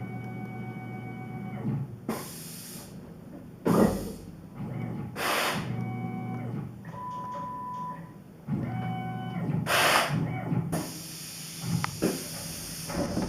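Tormach PCNC 1100 CNC mill machining MIC6 cast aluminium plate: motor whine that starts, stops and shifts pitch every second or two as the machine moves, with several short hissing bursts and a longer hiss near the end.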